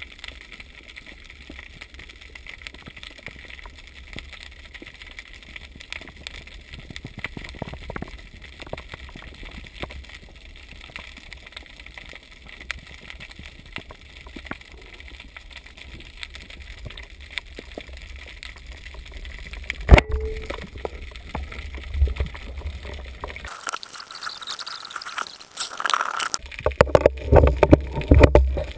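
Muffled underwater sound through a GoPro camera's waterproof housing: a low steady rumble with faint scattered clicks, a single sharp knock about two-thirds of the way through, then louder irregular bumps and sloshing near the end as the swimmer moves.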